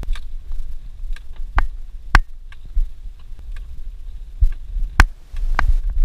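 Low rumble heard from inside a Suzuki Jimny's cabin as it drives a rutted dirt track. Sharp knocks and rattles come as it jolts over the ruts, four of them louder than the rest.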